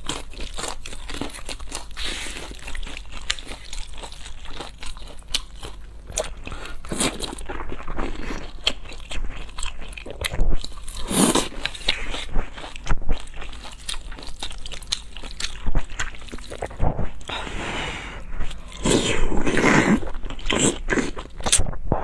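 Close-miked wet chewing and mouth clicks of someone eating wide noodles in black-bean sauce, with longer slurps of noodles about halfway through and near the end.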